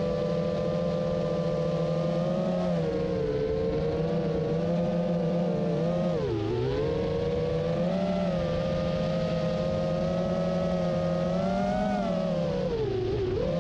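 A 5-inch FPV quadcopter's brushless motors and propellers, on 3D-printed folding hubs, whining steadily in flight as heard from the onboard camera. The pitch rises and falls with the throttle and dips sharply twice, about six seconds in and again near the end.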